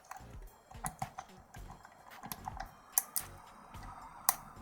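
Lock pick clicking and tapping against the pins inside a pin-tumbler lock cylinder during single-pin picking under very light tension, as the picker searches for the next pin to set. Irregular small clicks, the loudest about three seconds in and again just past four seconds.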